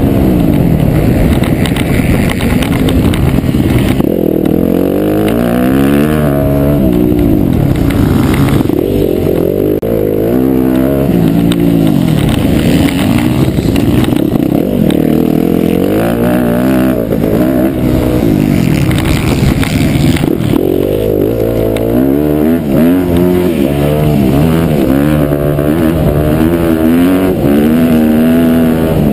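Off-road motorcycle engine heard up close from the bike itself, revving up and dropping back again and again as the rider accelerates, shifts gears and backs off through the turns of a stubble-field motocross course.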